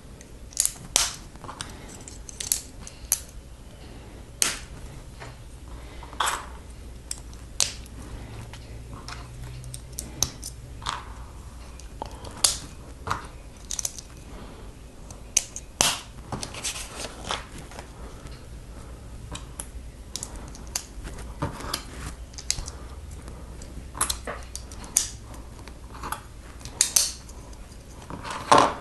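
Plastic Lego bricks clicking and snapping together as pieces are picked up and pressed on, in irregular sharp clicks every half second to two seconds.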